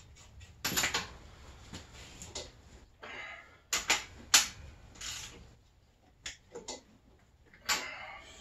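Irregular clicks and small knocks from hand work on the snowmobile's engine, with about a dozen scattered through and a couple of brief scraping rustles, one about three seconds in and one near the end.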